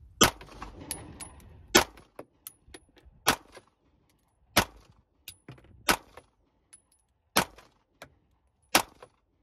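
Smith & Wesson M&P9 Metal 9mm pistol firing seven slow, evenly paced shots, about one and a half seconds apart, with fainter sharp ticks between the shots.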